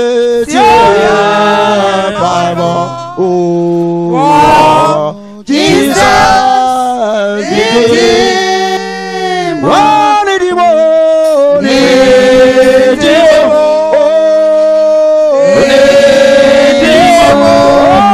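Gospel worship singing into microphones, with a man's voice and a group of women's voices. The notes are held long and slide up and down in pitch, with short breaks between phrases.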